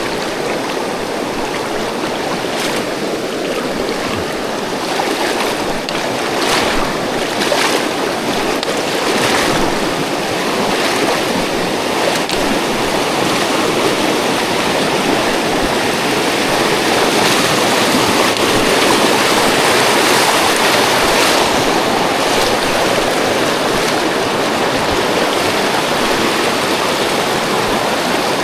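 Fast-flowing river water rushing steadily, with a few brief splashy surges in the first dozen seconds.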